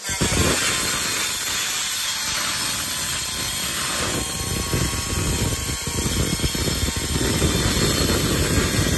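Yamasu YMS-110R handheld tile cutter, its 1050 W motor driving a 110 mm diamond blade, cutting through a floor tile under load. A loud, steady grinding that starts suddenly and holds throughout.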